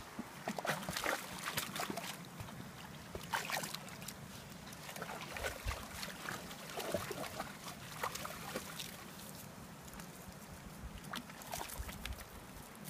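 American Staffordshire Terriers wading through shallow creek water, their legs splashing and sloshing in irregular bursts.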